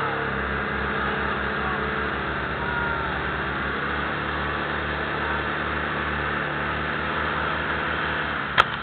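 Engine of a portable fire pump running steadily under load, feeding several hoses whose jets are spraying. A single sharp click near the end.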